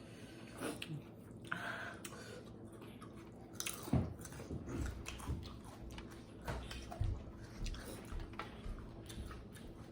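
A person chewing and biting food close to the microphone: irregular wet mouth sounds and crunches, the loudest bite about four seconds in.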